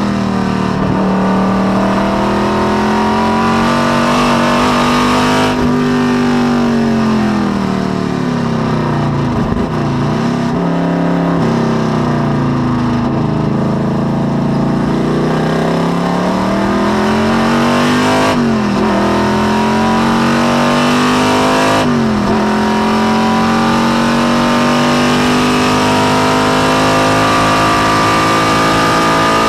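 1972 Corvette race car's small-block Chevy V8 under load, heard from inside the cockpit. The note holds steady, then falls off about five seconds in as the car slows for a corner. It climbs again, dips sharply twice at gear changes about 18 and 22 seconds in, and rises in one long pull.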